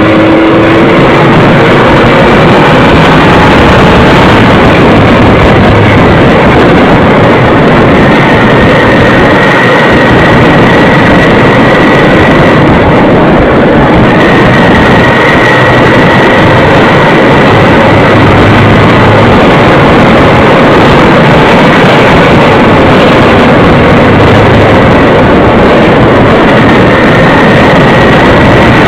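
Motorcycle riding at speed heard from an onboard camera: loud, distorted wind rush over the microphone, with a faint whine from the engine underneath.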